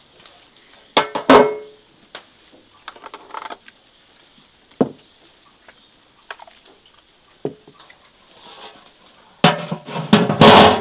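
Metal and glass clanking as glass canning jars with white screw lids are handled in a large aluminium pot: a ringing metal clank about a second in, scattered knocks and clinks, then a loud burst of clanks near the end.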